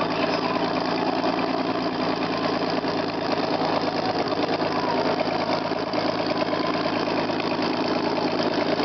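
BMW E30 drift car's turbocharged 2.5-litre engine idling steadily.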